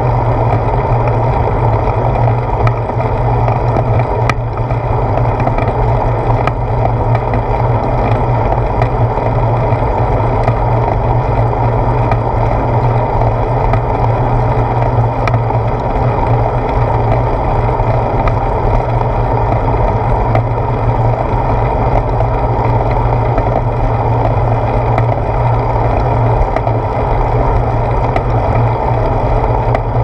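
Steady low rumble of wind and road vibration picked up by a handlebar-mounted GoPro while riding a bicycle, with a few faint ticks from bumps in the road.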